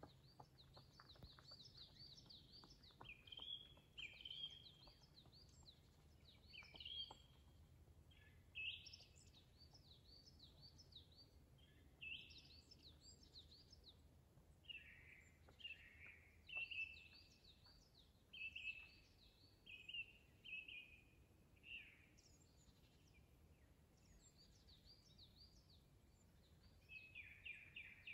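Songbirds singing faintly: short phrases of quick, high, arched chirps that drop to lower notes, repeating every few seconds, over a faint steady background hum.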